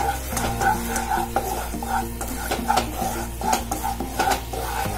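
A wooden spatula stirs wheat flour frying in ghee in a nonstick pan, scraping across the pan bottom in quick, rhythmic strokes about three a second, with the ghee sizzling underneath.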